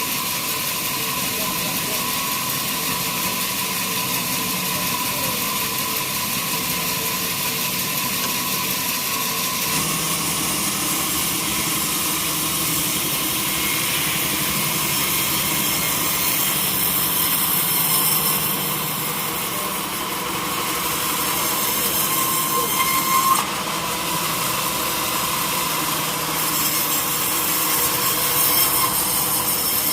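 Sawmill saw cutting through a teak log: steady machine running with a high hiss, which grows brighter about ten seconds in.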